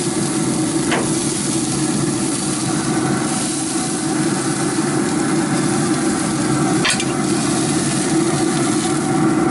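Ribs sizzling on the grate of a running Pit Boss pellet grill: a steady hiss with an even hum underneath. A metal fork clinks sharply twice, about a second in and again about seven seconds in.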